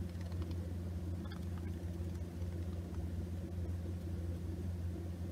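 Steady low machine hum with a constant pitch, like a room air conditioner or fan running, with a few faint soft taps over it.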